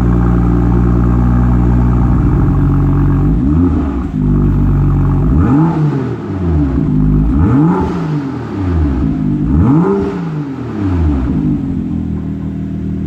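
BMW M2's turbocharged straight-six idling through its exhaust, then revved four times, a smaller blip followed by three bigger ones, each rising and falling in pitch, before settling back to idle.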